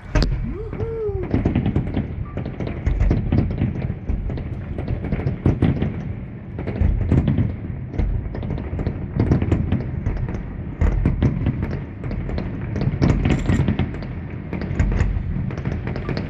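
Fireworks display going off: a continuous run of bangs, pops and crackles from aerial shells bursting, many per second. A person cheers "woohoo" about a second in.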